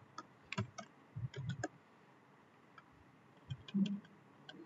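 Computer keyboard keys clicking in scattered taps while code is typed, with a pause of about two seconds in the middle. A short low hum of a voice comes near the end.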